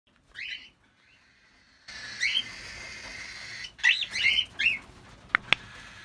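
Young cockatiel, just out of the nest, giving short rising chirps: one near the start, another about two seconds in, then a quick run of several. Two sharp clicks near the end.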